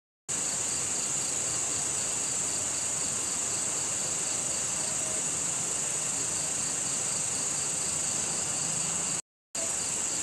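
Night insect chorus: crickets trilling steadily in a high band, with a second insect call pulsing in an even rhythm below it. The sound drops out completely for a moment at the start and again about nine seconds in.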